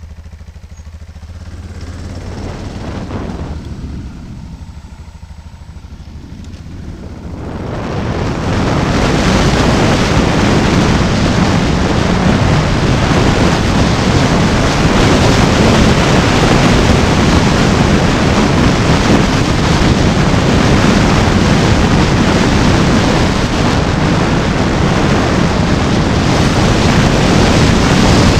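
Wind rushing over the microphone of a camera on a moving vehicle. It is quieter at first, with a short swell about three seconds in, then becomes a loud, steady rush from about eight seconds in.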